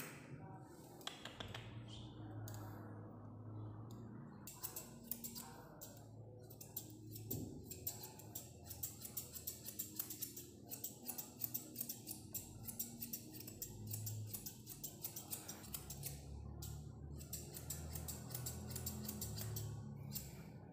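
Grooming shears snipping through a Maltese's coat in rapid, irregular clicks, with music underneath.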